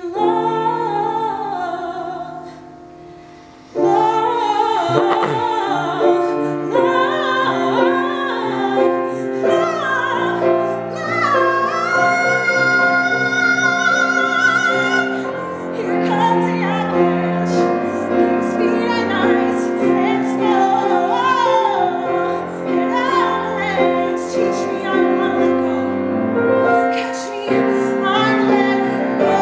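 A woman singing a musical-theatre ballad with piano accompaniment. The voice fades briefly, comes back strongly about four seconds in, and holds one long high note from about twelve to fifteen seconds in.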